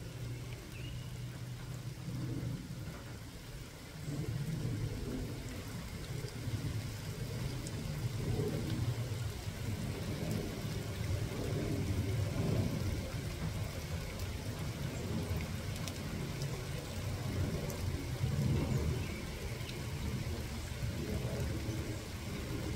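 Steady rain falling, with a low rumble underneath that swells and fades every few seconds.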